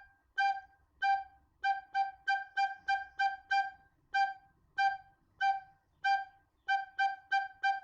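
Soprano recorder playing the note G over and over, each note tongued cleanly with no squeaks. The notes come in the rhythm of a simple song: some spaced out slowly, others in quick runs of three or four.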